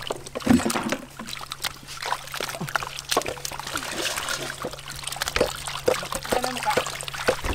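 Water splashing and trickling as hands wash peeled wood apple fruits in a large metal basin, with many small irregular splashes and knocks.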